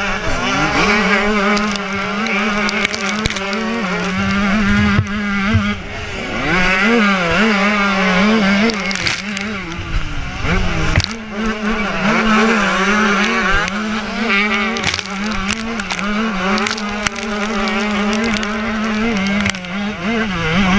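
A motocross bike's engine at high revs, heard close up from an on-board camera. Its pitch rises and falls constantly as the rider works the throttle, with a few sudden drops, over occasional knocks from the rough track.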